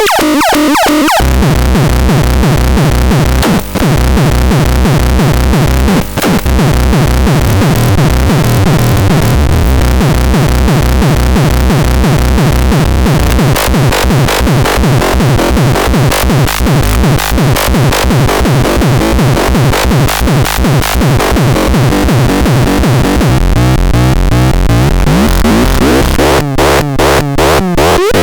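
Electronic synthesizer music: a dense, loud texture of fast repeating pulses over a steady low bass, shifting to a different pattern near the end.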